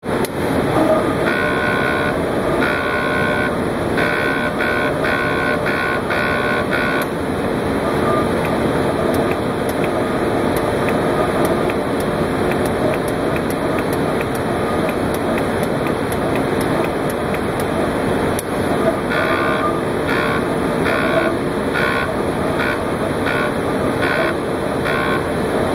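Automated conformal-coating dispensing robot running over a steady machine noise, its gantry motors giving short whines in quick, irregular succession in two spells, early and near the end.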